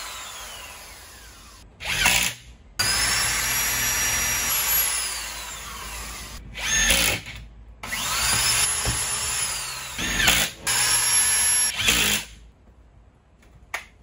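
Corded electric drill boring into a wooden block in several runs, its motor whine rising as it spins up and falling as the trigger is let off, with short louder bursts between runs. It stops about twelve seconds in.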